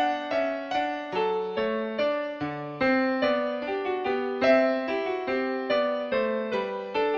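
Background piano music: a steady flow of struck notes and chords, a few each second, each ringing and fading.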